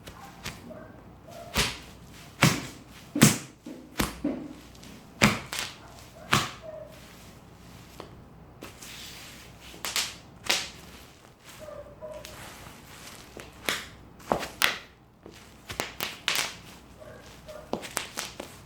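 Bubble wrap being popped: many sharp pops at irregular intervals, sometimes several in quick succession, with short gaps between.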